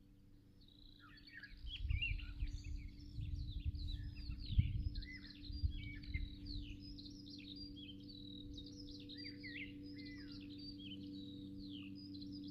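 Songbirds singing, a dense chorus of warbling and chirping phrases. A low rumble of wind on the microphone rises in the first half and fades, and a steady low hum grows slowly louder.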